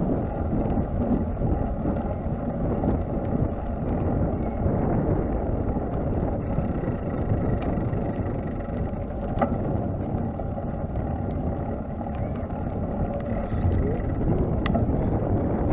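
Steady wind rumble buffeting the microphone, mixed with rolling noise from travelling over brick paving, with a couple of faint clicks.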